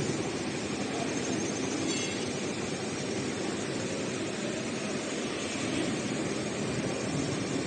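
Roll-to-roll heating wire sewing machine running steadily, a continuous mechanical whir with no break.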